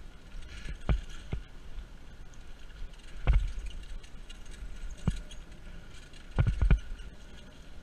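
Mountain bike rolling down a dirt singletrack strewn with dry leaves: steady tyre noise, broken by dull thuds at irregular intervals as the bike jolts over bumps, with a quick cluster of them near the end.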